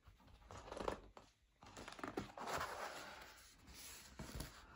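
Cardboard mailer box being opened by hand: a few faint scrapes and rustles of the cardboard lid and flaps.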